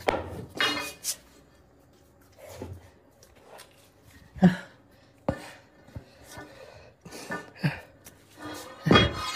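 An iron rod being handled and pushed into the hole of a weight plate: scattered knocks and scrapes, with two sharp knocks about four and a half and five seconds in.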